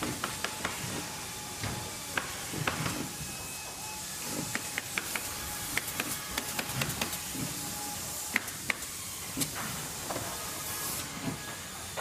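Factory machinery ambience: a steady hiss with irregular clicks and knocks, and a brief burst of high hiss near the end.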